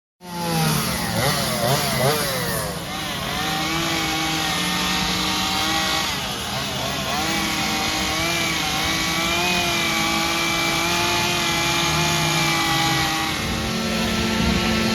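Chainsaw engines running. The pitch swings rapidly up and down as the throttle is blipped in the first few seconds, then holds at a mostly steady high speed with small wobbles.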